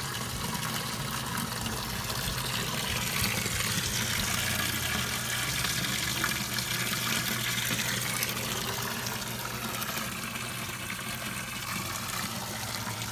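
Water splashing and trickling steadily down a small pump-fed backyard waterfall into the pond, with a steady low hum underneath.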